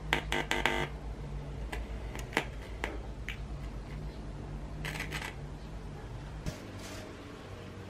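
Small clicks and taps of a white audio cable being handled and its plug pushed into a socket on a TV's circuit board: a quick run of clicks at the start, scattered single clicks, and another run about five seconds in. A steady low hum lies under it.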